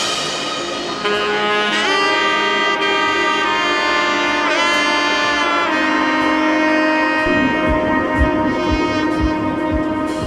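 Background music with a saxophone-like horn lead playing held and bending notes, joined by a steady low beat about seven seconds in.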